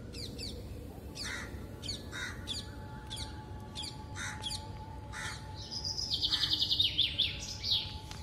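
Birds chirping: short high chirps repeat throughout, and a fast rapid trill a little past the middle is the loudest part. A few lower, hoarser caw-like calls come in between, over a low steady background rumble.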